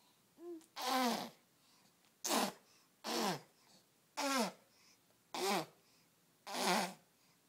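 A baby making short, raspy vocal sounds into a football, six in a row about a second apart, each one falling in pitch.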